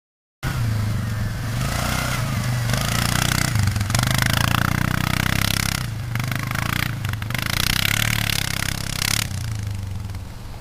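Suzuki quad bike's engine revving as it pulls away and accelerates through loose sand, its note rising and falling with the throttle. The sound starts suddenly about half a second in.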